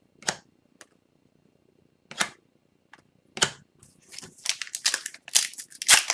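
Trading cards being handled and flicked apart, a few separate short snaps about a second apart. From about four seconds in, a card pack's wrapper crinkles and tears, growing denser and louder as it is opened.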